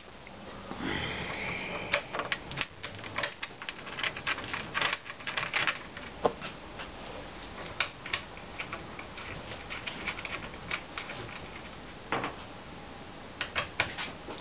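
Irregular light clicks and scrapes of 15 mm screws being tightened into the panels of a bunk bed, with a brief scraping rustle about a second in.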